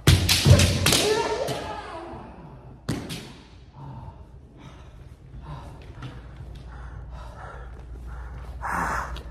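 Kendo strike: the sharp crack of a bamboo shinai hitting armour with a stamping foot on the wooden floor, followed by a drawn-out kiai shout lasting about two seconds. Another single sharp crack comes about three seconds in.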